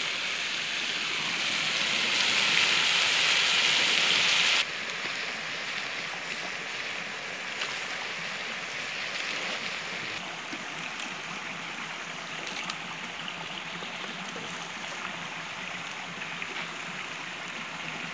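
Meat frying in a wok over a wood fire, a loud steady sizzle that cuts off abruptly about four and a half seconds in. After that comes the softer steady rush of a shallow stream running over stones, with a few faint clicks.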